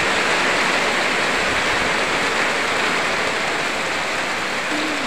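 Heavy rain pouring steadily on foliage and wet ground, a dense, even hiss.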